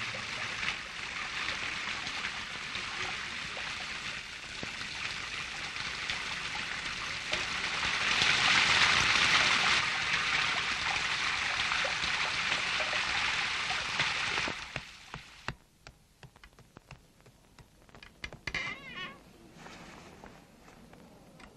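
Water spraying and gushing in a steady hiss, loudest about eight to ten seconds in, that cuts off suddenly about fourteen seconds in. After it, faint scattered clicks and taps.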